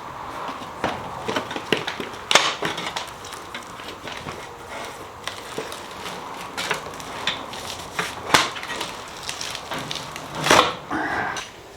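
Workshop handling noise: irregular knocks, clicks and rustles as new exhaust pipes and parts are handled, with sharper knocks about two, eight and ten and a half seconds in.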